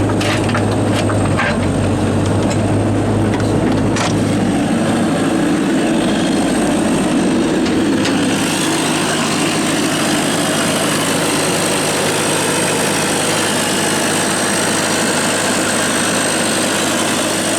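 Diesel engine of a 2002 Bobcat 337D midi excavator running steadily, with a few clicks in the first few seconds. Between about five and eight seconds in, the deep hum drops away and a brighter hiss comes up.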